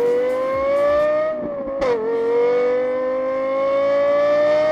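Car engine accelerating hard, its pitch climbing steadily, dropping sharply at a gear change about two seconds in, then climbing again.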